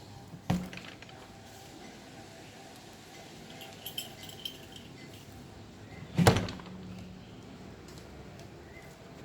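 Two dull household thumps, a light one near the start and a much louder one about six seconds in, each with a short low ring after it, with a few faint clicks between them.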